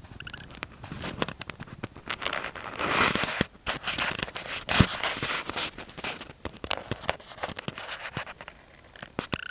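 Close rustling and crackling with many sharp clicks, busiest and loudest in the middle few seconds.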